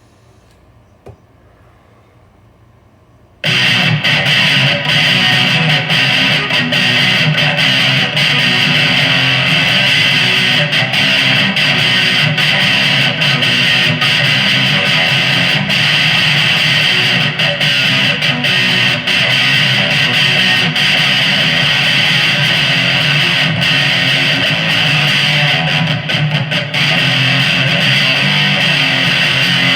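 Gretsch 5435T solid-body electric guitar played through an amplifier. After a few seconds of quiet with a small click, the playing starts suddenly and loudly and continues without a break.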